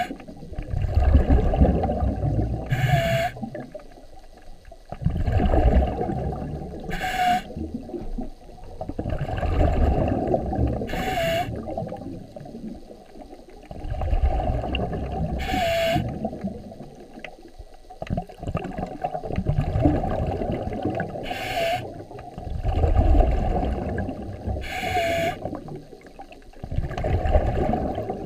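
A diver breathing through a scuba regulator underwater. About every four seconds comes a short hissing inhale with a brief squeak, followed by a longer rumbling, bubbling exhale.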